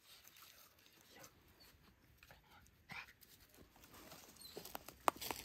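Dry leaves and twigs rustling and crackling as a small dog noses and paws about on the forest floor, with a few sharper crackles near the end.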